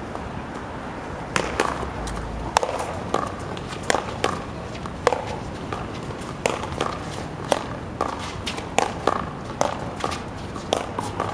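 A one-wall paddleball rally: the hollow rubber ball is smacked back and forth by paddles and slapped against the concrete wall, sharp hits about every half second to a second. Sneakers scuff on the asphalt court between the hits.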